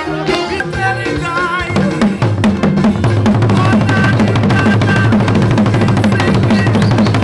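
Lively percussion music. A melodic tune runs for about the first two seconds, then fast, steady drumming on large hand drums takes over and gets louder.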